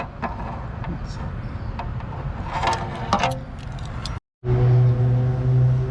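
Steady low hum of an idling engine, with a few small clicks and taps of hands working on the taillight. After a brief dropout just past four seconds, the hum is louder.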